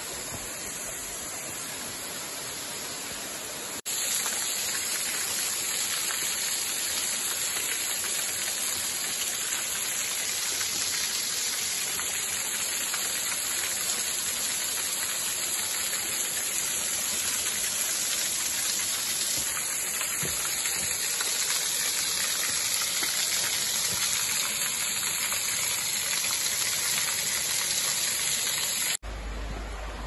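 Water of a small waterfall falling onto rocks: a steady rushing splash. It breaks off for an instant and comes back louder about four seconds in, and breaks again shortly before the end into a quieter rush of water.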